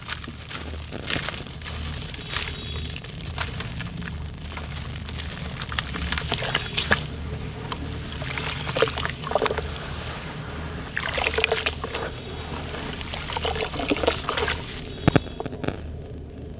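Hands sloshing and squeezing in a tub of muddy water as a dried sand chunk crumbles and dissolves in it: irregular wet splashes and squelches.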